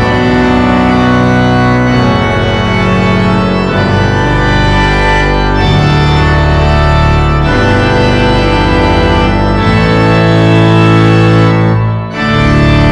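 Organ playing slow, held chords that change every second or two, with a brief break near the end.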